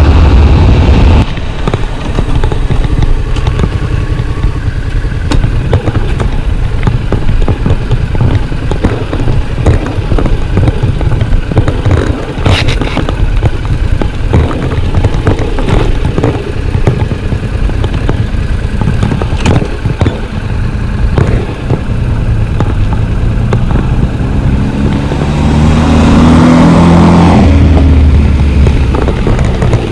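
Yamaha MT-07's parallel-twin engine running under way, loud for the first second and then easing off, with a couple of sharp clicks in the middle. Near the end the engine note rises in pitch and level as the bike accelerates.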